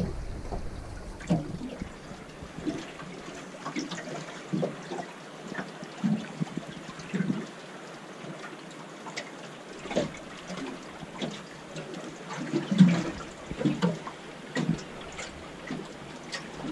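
Small waves lapping and slapping against the hull of a small aluminium boat, in irregular splashes about once a second over a steady wash of water. Wind rumbles on the microphone in the first second or two.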